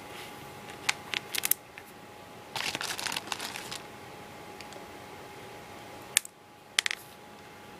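Plastic pony beads and string being handled on a tabletop: a few small sharp clicks in the first second and a half, a rustle of handling about two and a half seconds in, and two more clicks near the end.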